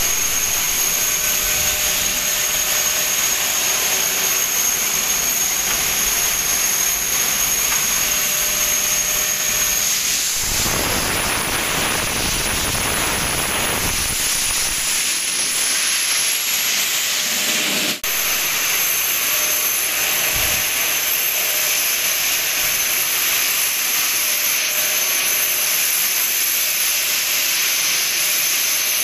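Loud, steady rushing hiss of industrial machinery with a continuous high whine. Near the middle the whine drops out while a single whistle climbs in pitch for a few seconds, and there is a brief dropout about two-thirds of the way through.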